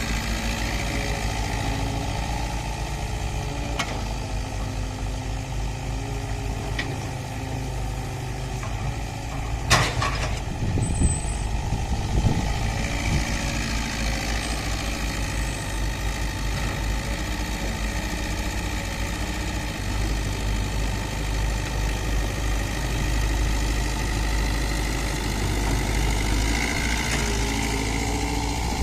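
Hydraulic excavator's diesel engine running steadily while digging soil, with a few sharp knocks close together about ten to twelve seconds in.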